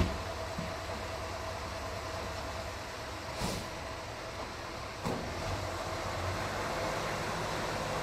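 Fire engine's diesel engine running as the truck moves off slowly, its low rumble growing stronger in the second half. A short hiss comes about three and a half seconds in and a short knock about five seconds in.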